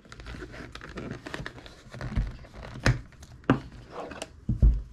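Leather holster rubbing and creaking as a revolver is handled and slid out of it, with several sharp knocks and clicks from the strap's snap and the steel gun through the second half.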